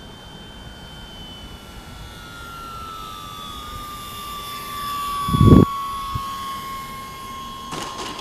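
Electric brushless motor and propeller of an RC FMS Cessna 182 model in flight, a thin whine that slowly falls in pitch as it comes in on landing approach. A brief loud low thump about five seconds in.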